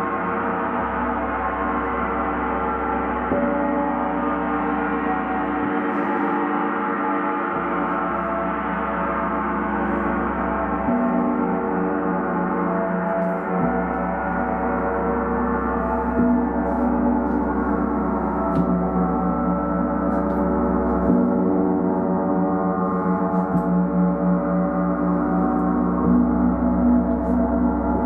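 Gong played continuously, a steady dense ringing of many overlapping tones with no separate strikes standing out.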